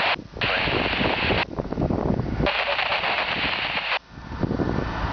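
Large structure fire burning through an apartment roof, with dense crackling and sharp pops over a rushing noise, plus wind buffeting the microphone. The sound cuts out briefly twice.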